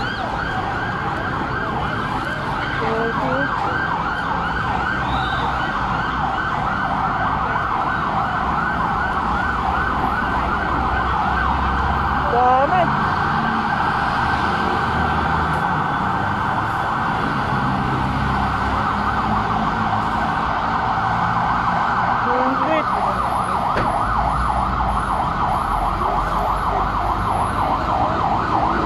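An emergency vehicle's siren sounding without a break in a fast, rapidly rising-and-falling warble, over a low rumble of traffic.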